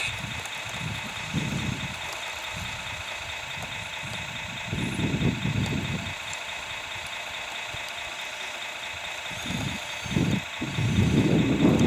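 Radio-controlled tracked loader running: a steady high whine with low rumbling surges as it drives and pushes dirt, the loudest near the end.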